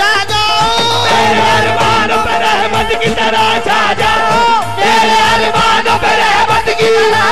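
Qawwali music: backing singers singing together into microphones over harmonium, with percussion keeping a steady beat.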